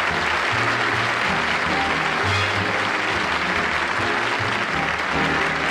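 A studio audience applauding steadily over a band playing, with a bass line stepping from note to note underneath.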